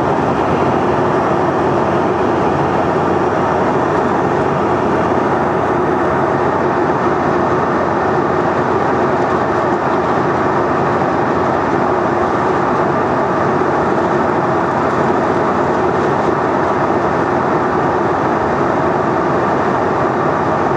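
Steady cabin noise of a Bombardier CRJ700 regional jet in flight: the rush of air past the fuselage and a constant hum from its rear-mounted turbofan engines, unchanging throughout.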